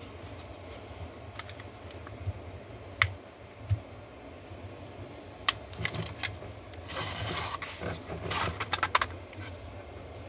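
White plastic housing of a Hikvision dome camera being twisted open by hand: scattered plastic clicks, a stretch of plastic scraping on plastic about seven seconds in, and a quick run of clicks and scrapes just after.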